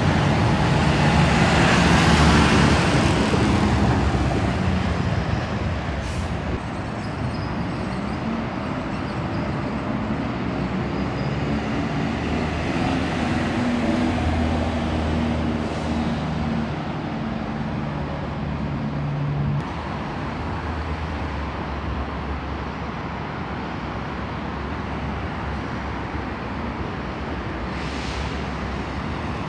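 Diesel city buses driving past at close range, engines running. The loudest pass comes about two seconds in, engine drone carries on through the middle, and a short air-brake hiss sounds near the end.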